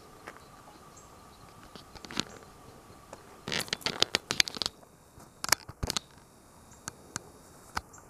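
Footsteps crunching and clattering on dry, loose stones, in irregular bunches. The busiest run comes about three and a half to nearly five seconds in, with a few scattered single crunches after it.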